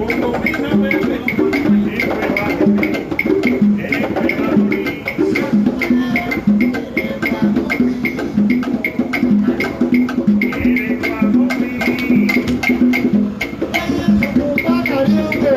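Latin band music playing an instrumental passage: a repeating bass line under sharp, evenly spaced percussion strokes, with no singing.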